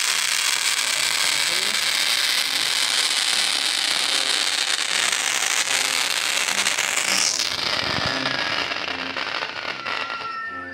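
Firework castillo spark fountains and wheels hissing and crackling in a dense, steady rush, thinning out and fading over the last few seconds.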